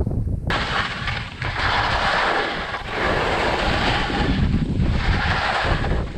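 Skis scraping and hissing through snow in a run of turns, the hiss swelling and fading with each turn, over heavy wind buffeting on the microphone.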